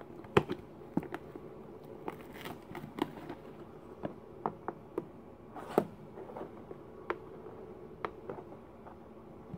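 Hands handling a thin clear plastic container and its torn paper wrapping: irregular sharp clicks and crinkles of plastic and paper, the loudest near the start and again past the middle.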